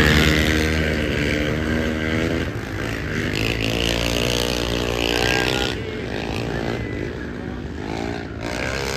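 Quad bike engines racing on a dirt track, revving up and down.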